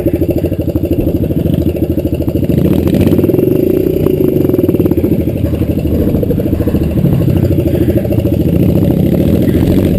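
Dirt bike engine running close by, its pitch rising briefly about three seconds in as it is given some throttle, then settling back.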